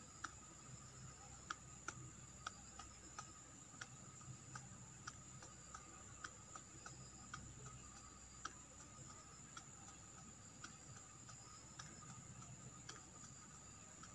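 Near silence with faint, sharp ticks about once or twice a second at uneven spacing, over a thin steady high whine.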